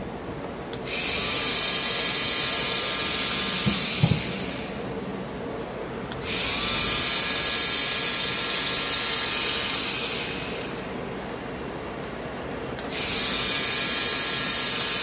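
3Doodler 3D pen's filament-feed motor and gears running in three spells of several seconds each, each starting with a short rising whine, as it pushes out plastic filament. There are a couple of faint knocks about four seconds in.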